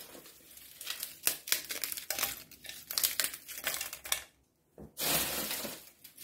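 Empty giant African land snail shells crunching and cracking as gloved hands break them up into a blender's plastic mill cup: irregular bursts of crackling, a brief pause a little past the middle, then a louder burst of crunching.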